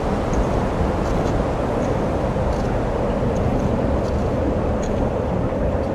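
Steady rushing noise of wind on the microphone and skis sliding along a groomed cross-country track, with faint light clicks every so often.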